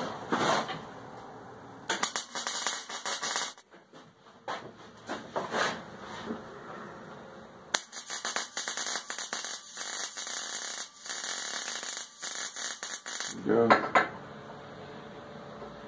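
Stick-welding arc crackling as a steel pipe is welded onto angle iron. There is a short burst about two seconds in and a longer steady run from about eight to thirteen seconds. A loud knock follows near the end.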